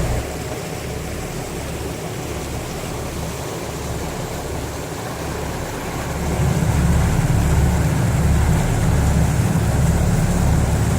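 Fishing boat's engine running underway, a steady low rumble with wind and water noise over it, growing louder about six seconds in.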